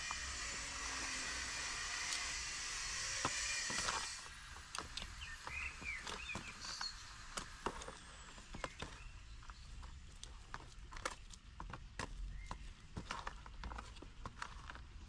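A steady hiss that cuts off about four seconds in. It is followed by a run of irregular short clicks, knocks and scrapes from hand tools working potting soil in a plastic bucket.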